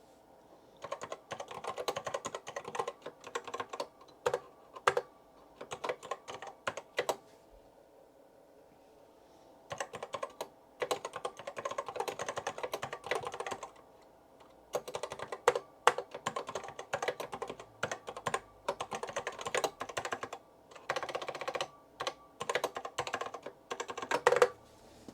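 Typing on a computer keyboard: quick runs of keystrokes in several bursts, broken by pauses of one to two seconds.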